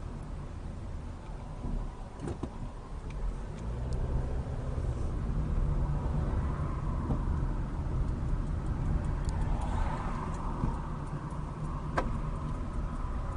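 Car engine and road noise heard from inside the cabin, growing louder about four seconds in as the car speeds up, with a single sharp click near the end.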